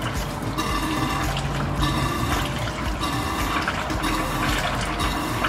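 Transmission fluid pouring out of a cooler-line hose into a plastic tote, a steady liquid splashing, with background music under it.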